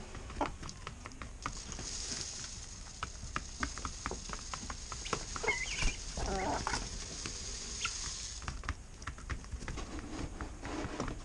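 Chickens pecking at feed, a scatter of quick clicks and taps, with a couple of short clucks about halfway through.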